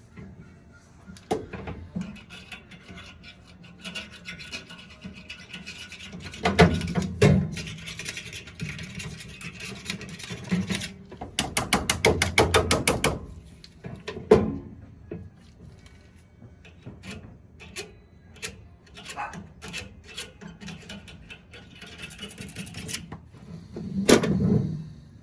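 Hand-work on furnace burner parts: intermittent scraping, rubbing and knocking of tools on metal, with a quick run of rapid, evenly spaced clicks about halfway through.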